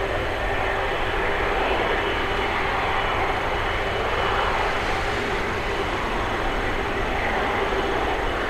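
Airbus A330neo's twin Rolls-Royce Trent 7000 turbofans at takeoff thrust: steady jet engine noise with a faint steady whine in it, as the airliner rotates and lifts off.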